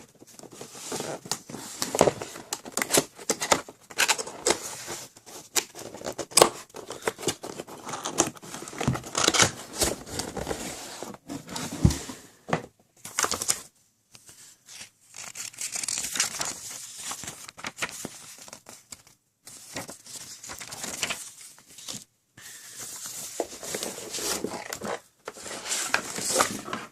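Keyboard packaging being unwrapped and handled: plastic and paper crinkling and tearing, with irregular clicks and knocks, and a few brief gaps where it stops.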